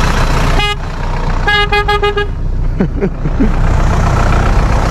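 Tractor engine running steadily while a horn toots twice: a short beep, then a longer one about a second later.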